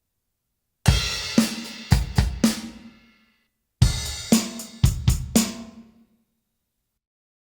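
Voik VIBE-500 electronic drum kit played in two short fills. Each fill opens with a kick and a crash cymbal, then four quick snare or tom hits, and rings out. The fills are about half a second apart, with dead silence between them.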